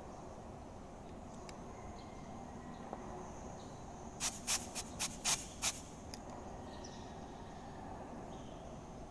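Oxy-fuel cutting torch giving six quick, sharp bursts of gas hiss, about four seconds in and lasting a second and a half, over a steady faint background with a thin high tone.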